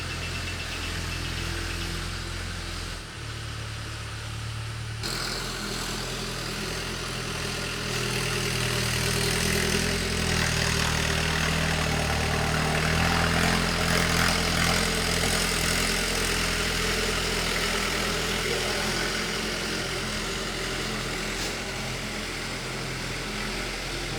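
Engine of a ploughing machine running steadily. Its sound changes abruptly about five seconds in, then grows louder toward the middle before easing off.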